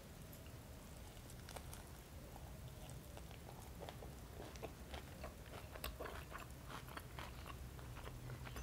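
Faint mouth sounds of chewing a soft lavash-wrapped çiğ köfte roll, with small wet clicks and smacks scattered irregularly.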